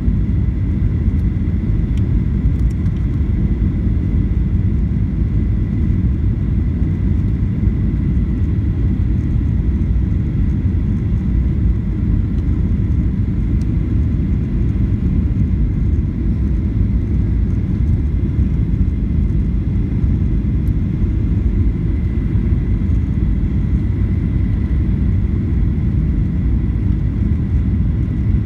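Steady low rumble of a jet airliner heard inside the passenger cabin on final approach with the flaps extended, with a faint steady high whine above it.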